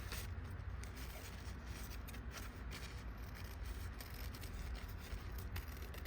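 Scissors snipping through a folded paper napkin to cut small circles, with scattered short snips and rustles over a low steady hum.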